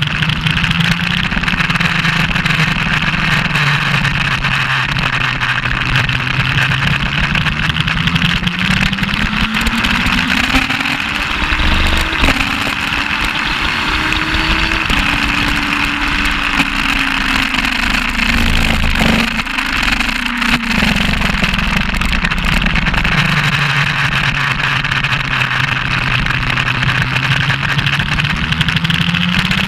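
Suzuki GS1200SS inline-four engine heard onboard under racing load, over a steady rush of wind. The engine note holds low, then climbs hard with two upshifts around the middle, falls as the bike slows with downshifts, holds low again and starts climbing near the end.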